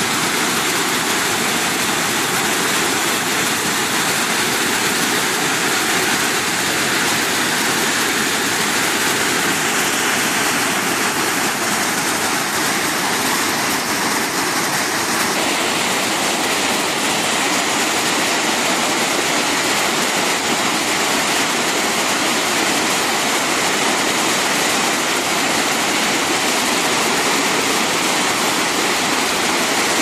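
Waterfall: white water pouring over and between boulders, a loud, steady rush with no break.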